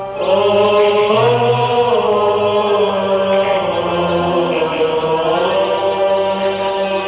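Arabic religious nasheed: a voice chanting a slow, wavering melodic line over held accompanying tones.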